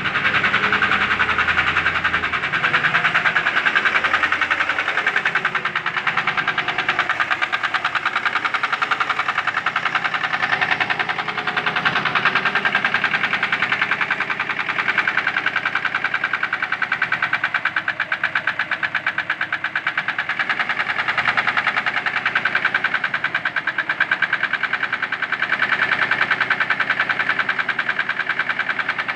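Mercedes-Benz M119 4.2-litre V8 running at a steady speed with a fast, even knocking from inside the engine, the knock the owner is recording.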